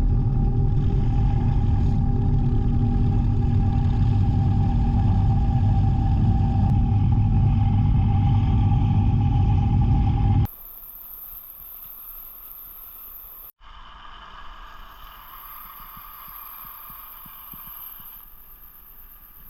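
A small electric motor running steadily with a constant whine and low rumble, cutting off abruptly about ten seconds in and leaving only a faint hiss.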